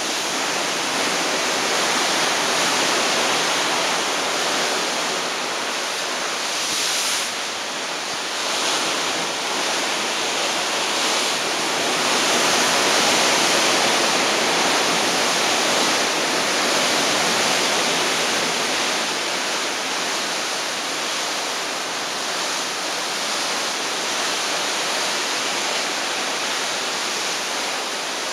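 Steady rushing hiss of a cruise ship's bow wave breaking into white foam along the hull, swelling a little about halfway through.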